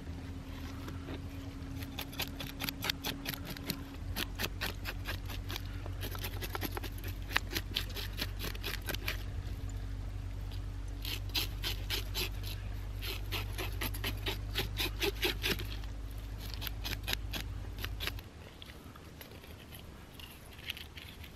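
Kitchen knife sawing through a kahawai behind the head on a plastic cutting board, in quick rasping back-and-forth strokes that come in bursts with short pauses between. A steady low hum underneath stops near the end.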